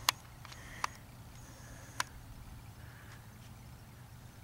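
Three sharp clicks in the first two seconds, handling noise on a handheld camcorder picked up by its built-in microphone, over a faint steady low hum.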